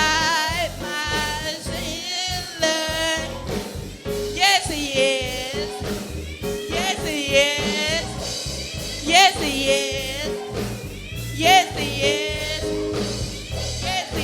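Gospel singing: a singer holding long notes with heavy vibrato over band accompaniment with a steady low beat.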